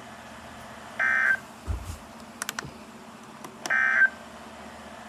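Emergency Alert System end-of-message data tones: two short, identical buzzy digital bursts about two and a half seconds apart, the code that closes a broadcast warning. A few sharp clicks fall between the bursts.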